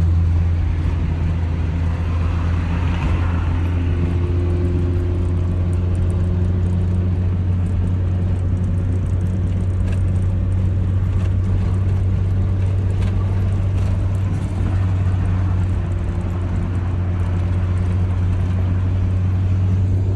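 Car engine running at a steady speed, a loud, even low drone with no revving.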